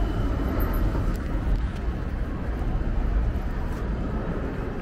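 Steady rumble of road traffic on a city street.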